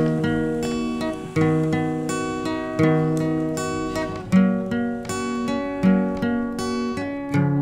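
Background music on guitar, with a new chord struck about every one and a half seconds and left to ring.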